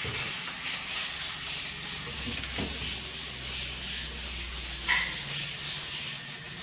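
Wooden wardrobe doors being pulled open by hand, with soft rubbing and handling sounds and a sharp click about five seconds in, over a steady hiss.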